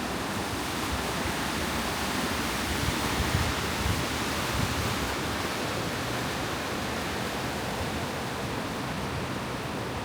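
Strong snowstorm wind: a steady rushing hiss, with uneven low gusts buffeting the microphone.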